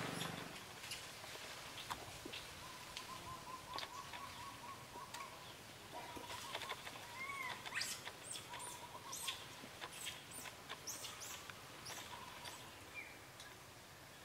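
Faint rustling and scattered small clicks of twigs and leaves, with a few short high bird chirps and a thin steady whistle for several seconds in the middle.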